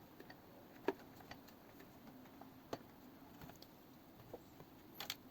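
Faint scattered clicks and light taps from hands handling PC parts and cables during assembly, the loudest click about a second in.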